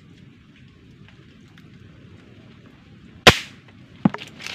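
Air rifle fired once: a single loud, sharp crack about three seconds in, followed under a second later by a fainter sharp click, over a steady hiss of rain.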